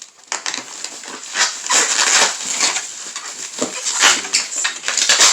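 Cardboard shipping box and its packing material being torn open and handled, with irregular crackling and rustling.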